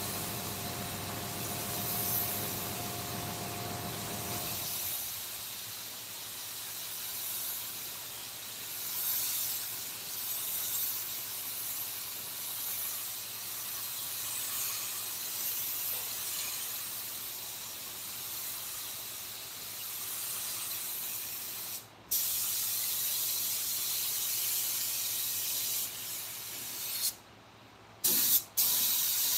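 Steady hiss of compressed air from an air spray or blow gun. A motor hums underneath at first and stops about four seconds in, and the hiss cuts out abruptly twice near the end.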